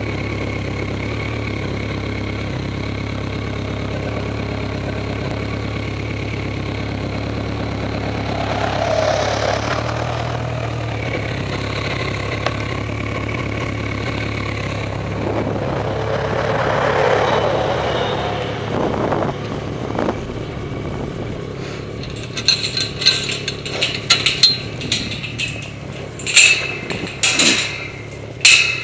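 Motorcycle engine idling steadily, with two brief swells in level. In the last several seconds a run of sharp, irregular knocks and rattles comes in over the engine.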